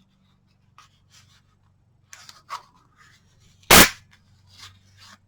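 Faint scattered handling noises, then a single loud, sharp knock about three and a half seconds in, like something struck or set down hard on the work surface.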